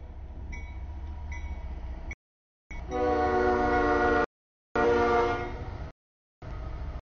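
CSX freight locomotive's multi-chime air horn sounding for the grade crossing as the train approaches and reaches it, loudest from about three seconds in, over a low diesel rumble. The sound cuts out in several brief gaps.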